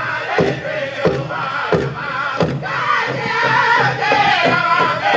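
Powwow drum group playing a fancy shawl dance song: a big drum struck in a steady beat of about three strokes a second, with a group of singers chanting over it.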